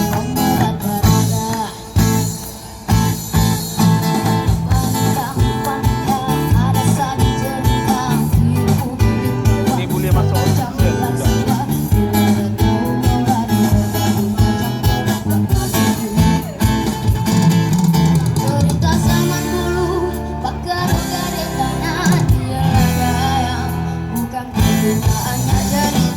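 A song performed live: guitar accompaniment with a singer's voice over low bass notes.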